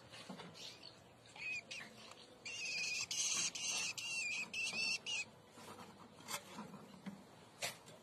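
Woodchat shrike fledglings begging for food: a short call about a second and a half in, then a loud, raspy run of begging calls in several pulses from about two and a half to five seconds in. Two sharp clicks follow near the end.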